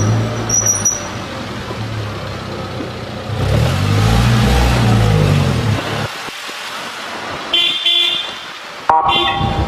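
A motorcycle engine runs at low speed, its pitch rising and falling once in the middle as it speeds up and eases off. In the last two seconds a vehicle horn beeps twice.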